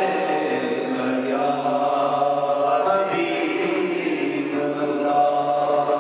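Unaccompanied Islamic devotional chanting by a man into a microphone, in long, slowly changing held notes.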